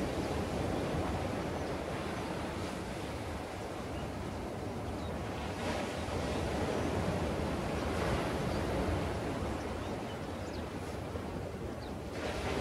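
Ocean surf breaking along a beach: a steady wash of noise that swells and eases as the waves come in.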